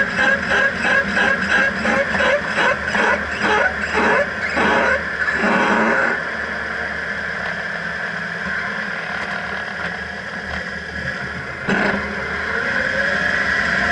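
1995 Subaru Sambar kei truck under way, with a rhythmic noise around the wheel hubs. It pulses about four times a second and slows as the truck slows, then gives way to a steadier drone. A short knock comes about twelve seconds in.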